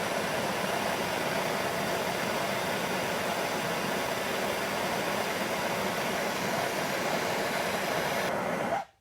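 Handheld propane torch burning steadily, a constant rushing hiss of flame as it heats a seized, drilled-out mirror stud in a scooter's metal mount. It cuts off abruptly near the end.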